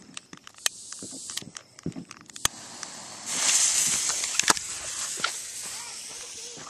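A lit firework hissing: scattered sharp clicks and pops, then a loud hiss about three seconds in that fades over a couple of seconds, with two more pops inside it.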